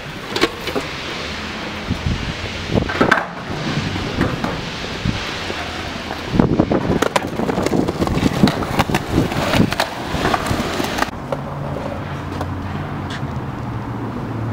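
Outdoor ambience of walking with a handheld camera across a concrete plaza: footsteps and handling knocks, with skateboard wheels rolling and clacking on the concrete and traffic noise underneath. The knocks come thickest in the middle, and a steady low hum sets in near the end.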